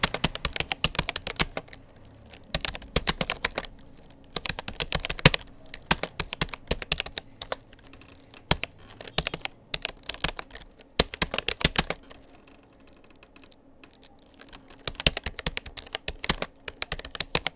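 Rapoo computer keyboard being typed on in steady bursts of key clicks. The typing pauses for about two seconds about two-thirds of the way through, then picks up again.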